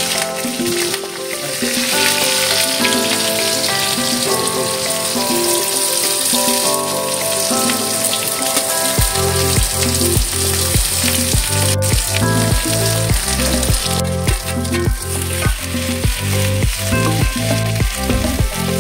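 Mustard seeds and asafoetida sizzling in hot oil in a metal kadai, then sliced vegetables frying as they are stirred. Background music plays throughout and picks up a steady heavy beat about halfway through.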